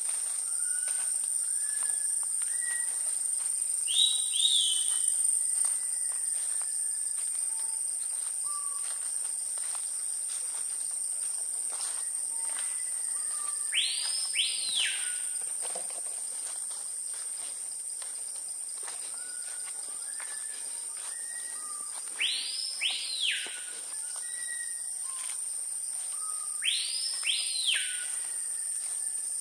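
Tropical rainforest ambience: a steady high-pitched insect chorus, with scattered short whistled calls. Three times, a louder pair of whistles sweeps up and down.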